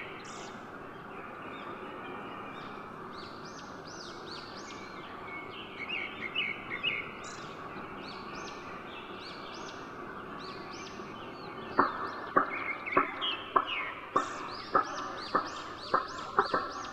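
Small birds chirping repeatedly over a steady background hiss. From about twelve seconds in, a run of sharp clicks or taps, roughly two a second, becomes the loudest sound.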